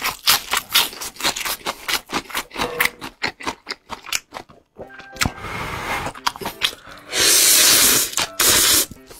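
Close-miked eating: crisp crunching as a fresh lettuce leaf is bitten and chewed, many sharp crackles in quick succession. Then noodles are slurped, with a long loud slurp about seven seconds in and a shorter one just after.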